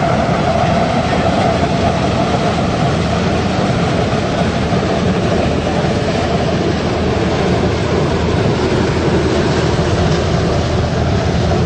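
Biomass sawdust burner running with its flame lit: its blower fan and burning fuel make a loud, steady rushing noise that does not change.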